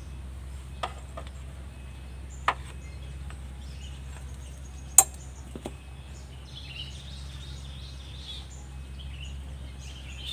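A handful of short, sharp clicks and knocks of hand tools and parts being handled during a motorcycle engine teardown, the loudest about halfway through, over a steady low hum. Birds chirp faintly in the second half.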